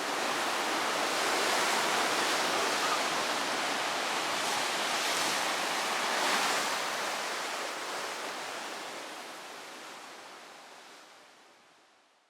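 Sea waves washing on the shore in a steady hiss, swelling a couple of times around the middle, then fading away.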